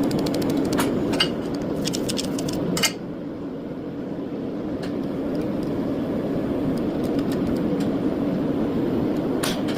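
A laser welding machine's steady cooling hum, with short bursts of fast clicking pulses in the first three seconds and once more near the end.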